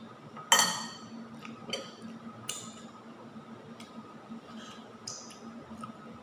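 Metal fork and spoon clinking against dishes while eating: one loud, ringing clink about half a second in, then a few lighter clinks.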